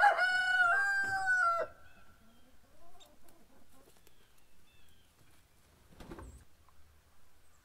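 A rooster crowing: one long, steady call that cuts off about a second and a half in, followed by faint clucking from hens in the coop.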